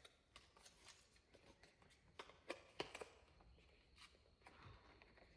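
Faint clicks and taps of long fingernails picking at a makeup product's packaging, struggling to get it open, with a few sharper clicks about two to three seconds in.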